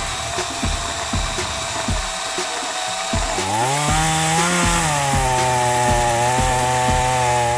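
Chainsaw cutting wood. A steady whine runs for about three seconds, then the saw revs up and its pitch rises, peaks and drops to a lower steady note as the chain bites into the wood. A music beat thuds underneath.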